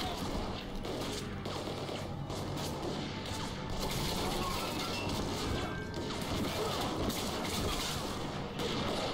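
Soundtrack of a TV drama action scene: background music with scattered crashes and clatter.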